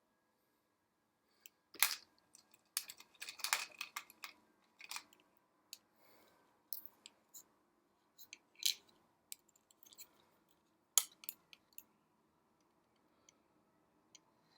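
Irregular small clicks, taps and scrapes of a Korg Triton Extreme joystick's parts being fitted back together and its screw being driven in by hand. The sounds start about two seconds in and die away after about twelve seconds.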